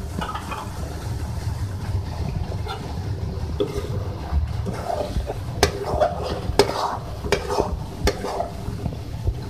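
A spoon stirring chicken curry as it bubbles in a karahi, scraping through the sauce, with a few sharp knocks of the spoon against the pan in the second half.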